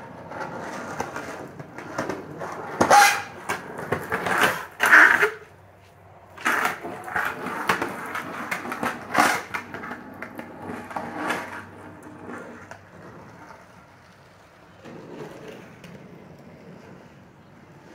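Skateboard with dyed wheels rolling on concrete: a steady rolling rumble broken by a run of sharp clacks and knocks in the first two thirds, growing quieter after about twelve seconds as the board moves off.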